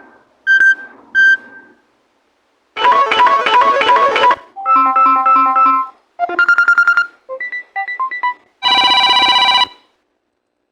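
Samsung Galaxy Tab A8 ringtones played one after another. A few short beeps come first, then five different short electronic tunes of about a second each, with brief gaps between them. The last tune is a dense, buzzy tone.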